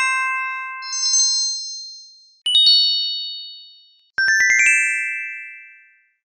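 Logo intro jingle of bright, bell-like chimes: four quick clusters of ringing notes, each fading away, the last a fast rising run of about six notes near four seconds in.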